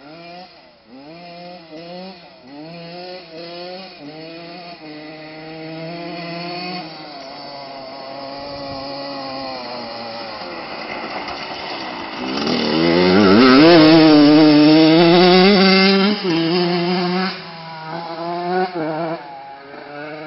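Honda CR125's single-cylinder two-stroke engine revving in a series of short blips, then accelerating hard about twelve seconds in, its pitch rising and the sound at its loudest for about four seconds before dropping back to more short blips.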